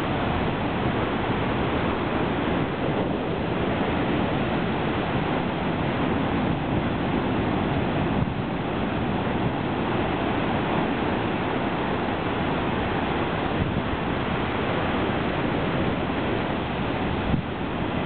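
Heavy storm surf breaking over a rock shelf and washing across it in sheets of foam: a steady, loud rush of churning water.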